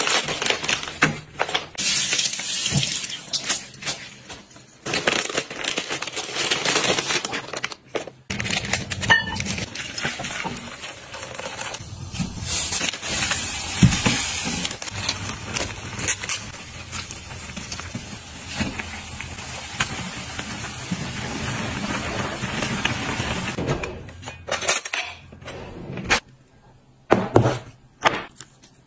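Home kitchen cooking sounds: pans, lids and utensils clinking and knocking, with a long stretch of steady hissing while noodles cook in broth in a wok on a gas stove. Near the end only a few scattered knocks are left.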